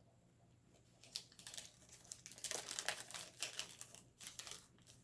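Snack wrapper on a chocolate bar crinkling and rustling in quick, irregular bursts, starting about a second in.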